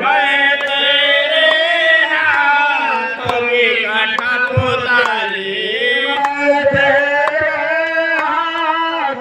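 A man chanting a Hindu devotional bhajan into a handheld microphone, in long held notes that slide up and down.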